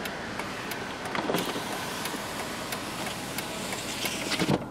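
Electric power window of a 2007 Mercedes-Benz S450 running: the front door glass travels in a single automatic stroke with a steady motor whirr, with a few short clicks.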